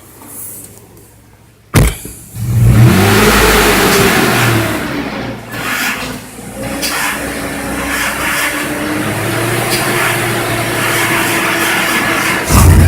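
A car engine revs up and falls back, then is held at a raised, steady speed. There is a sharp knock just before it and a loud thump near the end.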